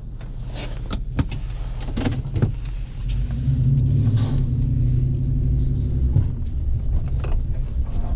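Pickup truck engine and road noise heard from inside the cab while driving. The engine note grows stronger about three seconds in and eases a little after six seconds, with scattered clicks and knocks inside the cab.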